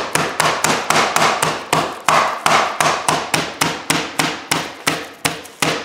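Meat mallet's textured side pounding boneless chicken thighs flat, a steady run of sharp strikes about three a second.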